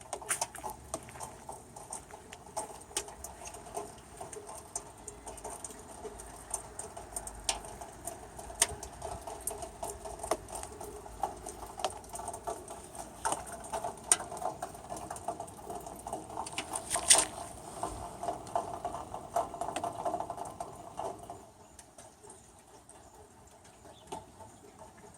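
Rainwater pattering and dripping in quick, irregular drops over a steady trickle. It drops away sharply about 21 seconds in.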